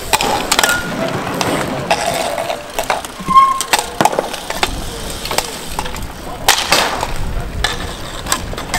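Hardcourt bike polo in play: sharp clacks of mallets striking the ball and each other, bicycles rattling over the asphalt, and short shouts from the players.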